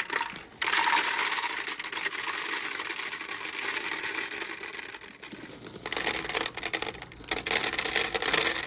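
Dense, steady rattling of many small hard pieces being poured, in two long runs: one starting about half a second in, the other about six seconds in.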